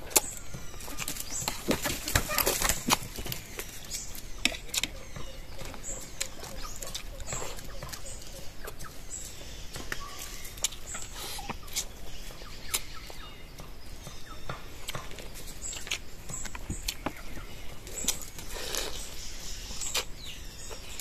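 Cooked crab shells being cracked and picked apart by hand, with the chewing and lip-smacking of eating: irregular sharp clicks and crackles throughout.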